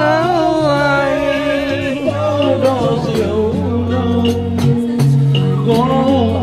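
Karaoke backing music playing: a wavering lead melody over changing bass notes and a steady beat.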